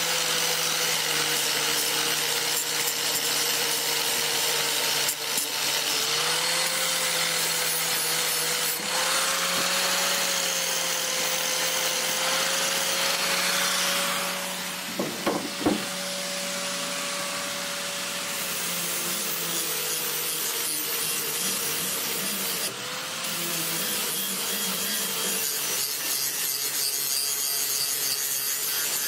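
Die grinder with a flap disc grinding the paint off a lawn mower blade. The motor's steady whine sags and recovers in pitch as the disc is pressed on, over a harsh scraping hiss. It eases off for a few seconds about halfway through, with a couple of short knocks.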